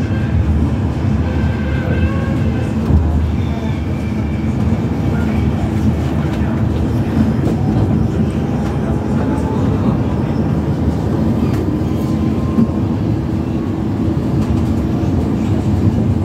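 Cabin running noise of an Alstom Citadis Dualis tram-train travelling at speed: a steady rumble of steel wheels on the rails, with a faint rising whine about halfway through.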